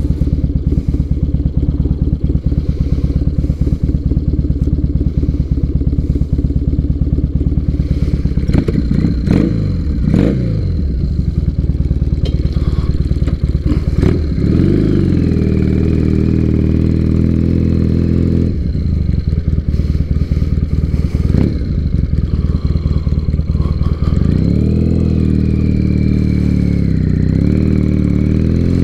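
2006 Triumph Bonneville T100's air-cooled parallel-twin engine idling steadily, then revving as the bike pulls away and rising and falling in pitch through several gear changes, climbing again near the end.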